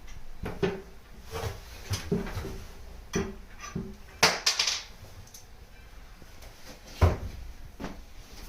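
Irregular knocks, taps and short scrapes of wood and tools being handled, with a clattering cluster about four seconds in and a single sharp knock about seven seconds in.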